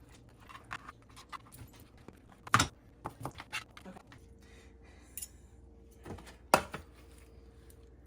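Kitchen utensils and dishes clattering and knocking while food is sliced and plated, with two sharper knocks about two and a half and six and a half seconds in.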